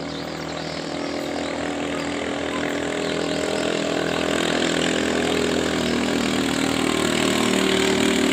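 Racing katinting longtail boat engine running flat out at high revs, growing steadily louder as the boat approaches.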